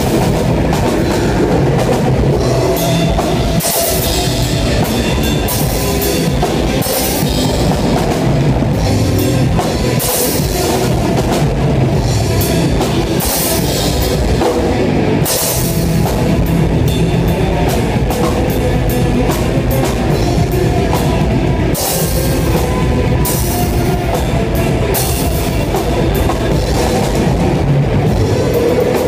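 A rock band playing live, heard from right beside the drum kit: the drums are loud and close, with crash cymbals hit repeatedly through the passage over the amplified band.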